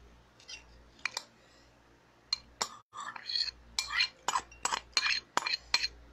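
Spoon clinking and scraping against a ceramic rice bowl held tipped up to the mouth, scooping out the last of the food. A couple of clinks about a second in, then a quick run of about a dozen sharp clinks, two to three a second, through the second half.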